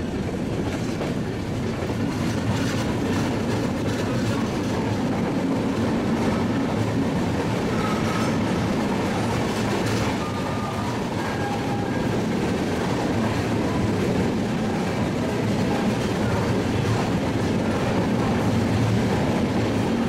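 Passenger train coach running along the track, heard from on board: a steady rumble of wheels on rails with some clickety-clack, and a few faint short squeals near the middle.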